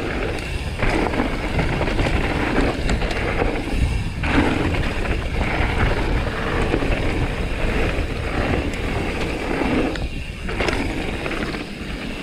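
Mountain bike riding fast down a rough, rocky trail: tyres rumbling over the ground and the bike rattling with each bump, with a steady low rumble throughout.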